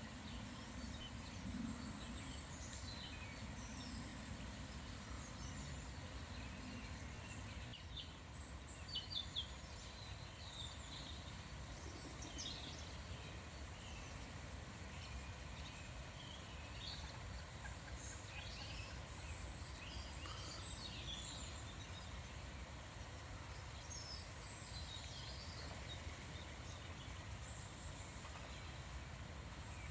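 Small birds calling and singing in scattered short chirps over a steady low background rumble, with a few sharper clicks about a third of the way in.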